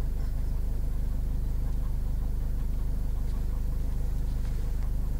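A car engine running steadily with an even low hum, heard from inside the car.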